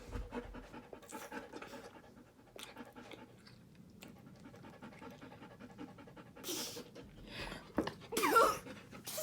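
A dog panting faintly in quick, even breaths, with a short burst of a person's voice near the end.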